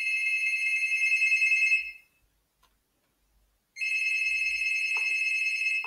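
Telephone ringing: two electronic rings of about two seconds each, with a pause of nearly two seconds between, interrupting the talk.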